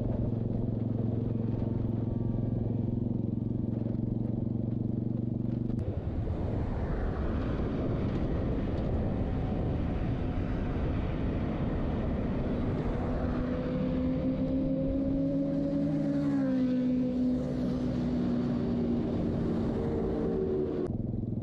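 Royal Enfield motorcycle's engine running at a steady cruise under wind noise. About two-thirds of the way through, the engine note climbs and then falls sharply.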